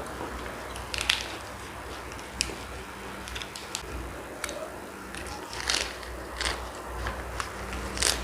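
Close-miked eating of linguiça sausage: biting and chewing with about seven sharp, crunchy clicks spread irregularly, over a low steady hum.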